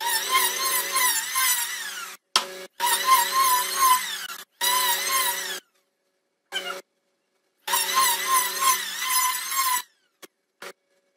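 Handheld electric planer running and shaving a wide wooden plank in several bursts. Each burst is a steady motor whine with a wavering cutting tone over it, and each cuts off suddenly into silence, with a longer break in the middle.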